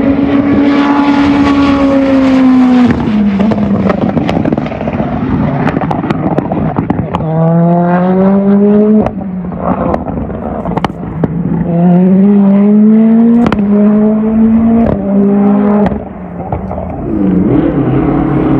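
A hillclimb race car's engine revving hard under acceleration. Its pitch climbs three times in the second half, dropping at each gear change, with sharp cracks scattered throughout.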